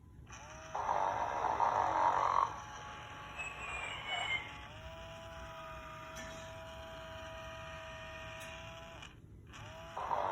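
Sleep 'n Snore Ernie toy's recorded snoring: a raspy snore on the in-breath about a second in, a short warbling sound, then a long steady pitched tone on the out-breath. The next snore starts near the end.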